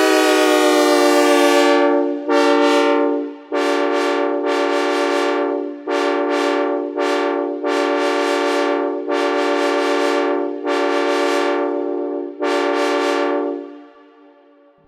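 Synthesized Nathan K5LA five-chime locomotive air horn (CSX narrow-font, 2nd generation) sounding one long blast, its pitch sliding down at the start, then a string of shorter blasts in quick succession, fading out near the end.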